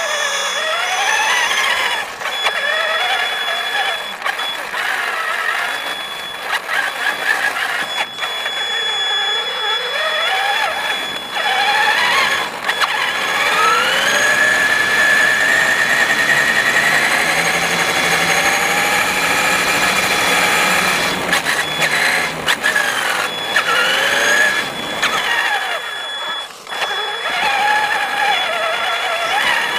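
Electric drive motor and gears of an RC monster truck whining as it drives, the pitch rising and falling with the throttle and holding a long climb midway, over a thin steady high tone.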